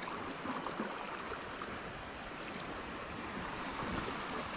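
Steady rush of running water from a small river rapid.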